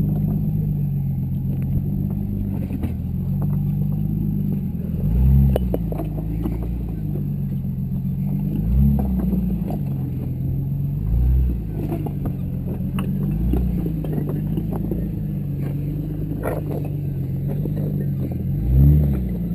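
Jeep Cherokee engine running low and slow while rock crawling, blipped in about five short revs, the last and loudest near the end, with scattered knocks and clunks as the tyres climb over rocks.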